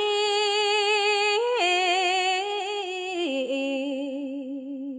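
Khmer smot chanting by a woman's solo voice, holding long wavering notes that step down in pitch twice and fade near the end.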